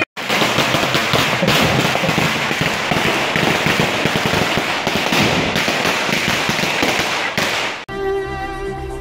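Chenda, the Kerala cylindrical temple drums, beaten in a loud, dense, rapid roll of strokes. The drumming cuts off suddenly near the end and gives way to recorded music.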